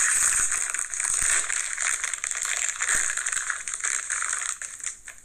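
Crinkly plastic snack bag of Cheetos Pretzels being handled and opened, a dense run of crackling and rustling.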